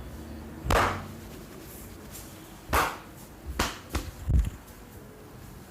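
Sharp hand strikes of a massage on the head and upper body: one slap about a second in, then a quick cluster of four hits between about three and four and a half seconds.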